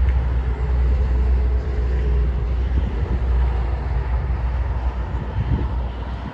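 Strong wind buffeting the microphone, a heavy low rumble, over the steady noise of highway traffic; it cuts off suddenly at the end.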